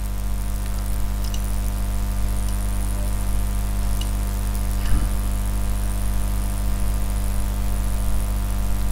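Steady electrical mains hum with a faint high hiss. A few faint clicks and one soft bump about five seconds in.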